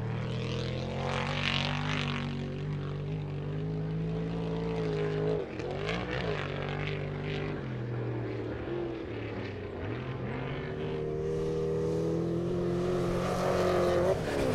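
Off-road race truck engines under hard throttle as the trucks race past on a dirt track. The engine note drops briefly about six seconds in, then climbs again and is loudest near the end.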